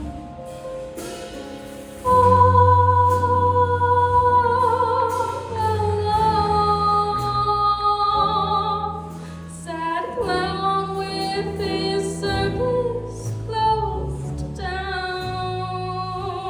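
Jazz ballad: a female singer enters about two seconds in, holding long notes with vibrato over piano and low bass notes.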